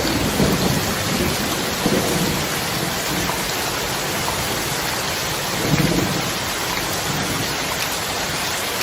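Heavy rain falling steadily, with low rumbles of thunder near the start, again around two seconds in, and most strongly about six seconds in.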